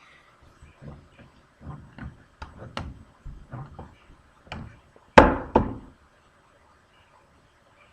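Irregular knocks and taps of wood and clamps being handled on a table saw, with two louder knocks about five seconds in, then quiet.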